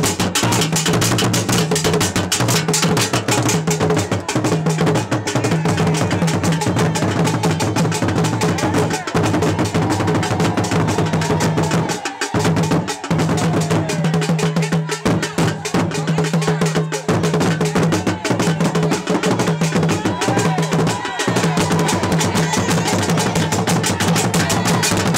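Traditional Asante drum ensemble playing a fast, dense rhythm on large peg-tensioned barrel drums struck with curved wooden sticks, with crowd voices mixed in. The drumming drops away briefly about twelve seconds in and again near seventeen seconds, then carries on.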